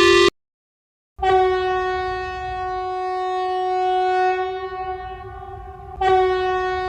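Electronic emergency-alert alarm tone, a steady buzzy horn-like note. An earlier tone cuts off just after the start, then comes about a second of silence. The note sounds for about five seconds, weakening somewhat, and sounds again sharply about six seconds in.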